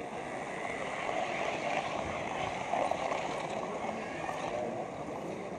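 Steady rushing, rattling rumble of a model railway wagon's wheels rolling along the track directly under the camera's microphone.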